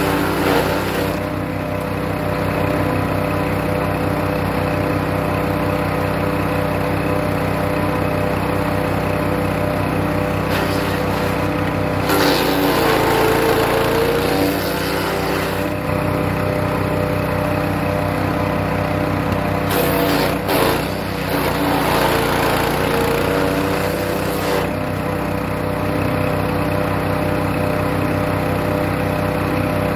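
Hecht 6208 wood chipper's engine running steadily, with two stretches of grinding about twelve and twenty seconds in as birch branches are fed through and chipped, the engine pitch dipping under the load and then recovering.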